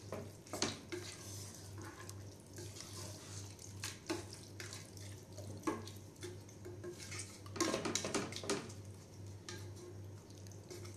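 Wooden spoon stirring mutton bones, masala and freshly added water in an aluminium pressure cooker: a wet sloshing stir with scattered knocks of the spoon against the pot, several together about eight seconds in.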